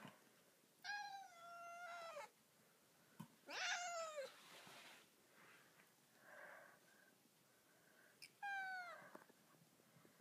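Domestic cat meowing three times: a long, level meow, a shorter one that rises and falls, and a brief falling meow near the end, all fairly high-pitched.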